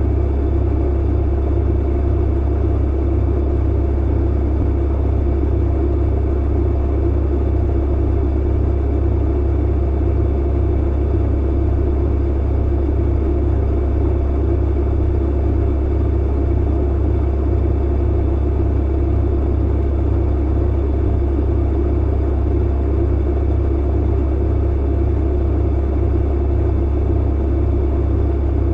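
Clothes dryer running steadily: a deep constant hum with an even rushing noise above it and no distinct thumps.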